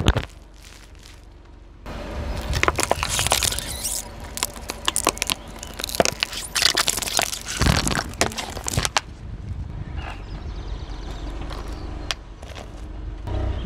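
Car tyre rolling over and crushing brittle objects: a sharp crack at the start, then a dense run of cracks and crunches from about two seconds in, easing off to a softer crackle near the end, over the low rumble of the car.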